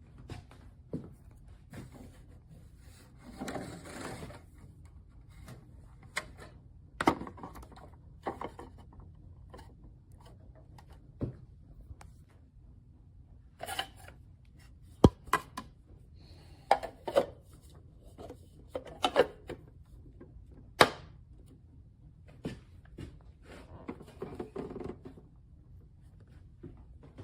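Scattered clicks, knocks and thunks of objects being handled, with a few short rustles, at irregular intervals over a low steady hum.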